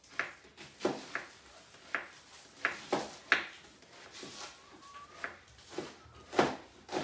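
Kitchen knife chopping a white onion on a chopping board: a dozen or so uneven knife strikes against the board, some louder than others.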